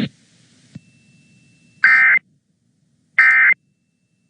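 Two short bursts of Emergency Alert System end-of-message data tones, the screechy digital warble of the SAME 'NNNN' code, about a second and a half apart. They mark the end of the alert message.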